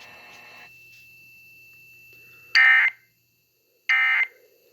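Emergency Alert System end-of-message data signal: two short, loud bursts of the digital warble tone, about a second and a half apart, marking the end of the alert.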